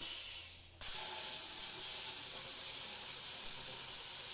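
CNC plasma cutter torch firing on 1/16-inch aluminum at 45 amps: a steady hiss of air and arc that starts suddenly about a second in.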